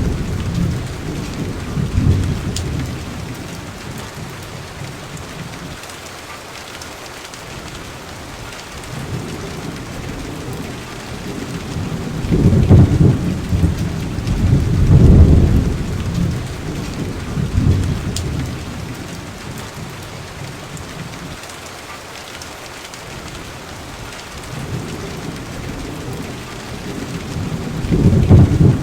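Steady rain with rolling thunder. Low rumbles swell and fade at the start, several times in the middle and again near the end, over a constant hiss of rain.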